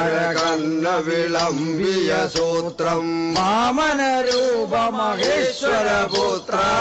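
A male voice chants a slow devotional song in the style of a tholpavakoothu shadow-puppet recital, with long held notes that bend and waver.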